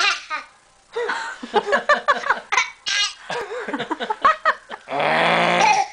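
Laughter and giggling in a run of short choppy bursts. About five seconds in comes a loud, harsh, drawn-out voice sound lasting about a second.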